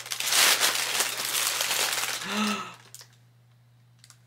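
White tissue paper crinkling and rustling as it is pulled away from a tumbler, stopping a little under three seconds in. A brief voiced hum sounds just before it stops.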